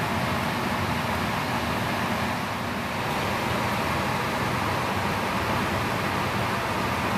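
Biological safety cabinet's blower fan running, a steady airflow rush with a low hum.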